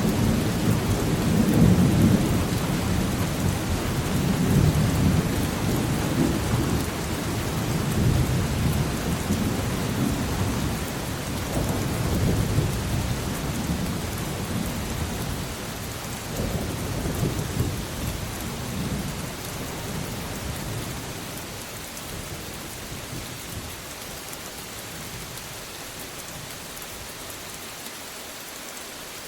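Thunderstorm: steady rain with a long rolling rumble of thunder that slowly fades away over the second half, leaving only the rain.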